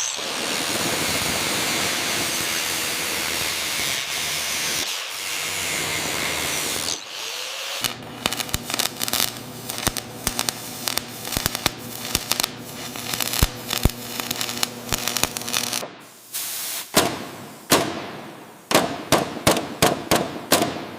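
Workshop tool noise. A loud, steady spraying hiss lasts about seven seconds. Then comes a rapid clattering with a steady hum for about eight seconds, and scattered sharp clicks and taps near the end.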